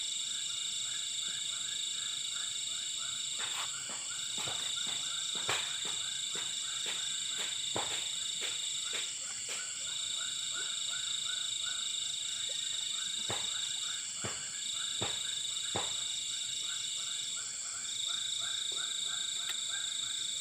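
Night chorus of insects and frogs: a steady high-pitched insect trill runs throughout, with frogs calling in fast repeated notes over it. A few sharp clicks are scattered through the chorus.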